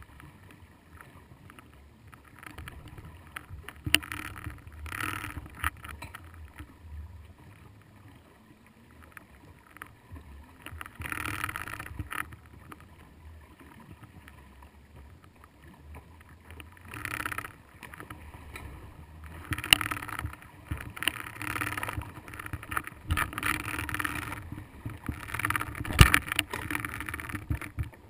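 Muffled water noise heard through an underwater camera housing, swelling and fading irregularly as water moves around it. A few sharp knocks, one about four seconds in and a louder one near the end.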